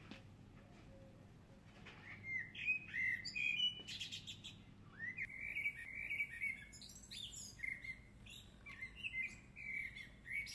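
Small songbird chirping in quick irregular runs of short, sliding notes, starting about two seconds in.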